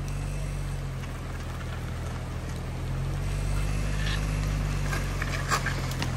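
Land Rover Discovery's engine running under load as it tows a fallen tree off the road on a recovery strap, its steady hum rising a little about halfway through. Near the end, a short run of crackles and scrapes as the tree's branches drag across the gravel.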